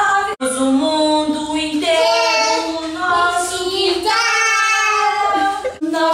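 A two-year-old boy singing a children's TV song in Portuguese, in high, held notes phrase after phrase, with a sudden short break about half a second in.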